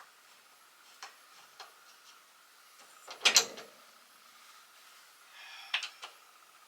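Closet rack being taken down: a couple of light clicks, a loud clatter about three seconds in, then a short rattle and two more clicks near the end.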